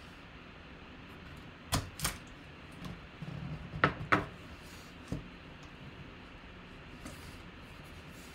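A sealed corrugated box being handled and turned on a table: five sharp knocks and taps, in two quick pairs and then one more.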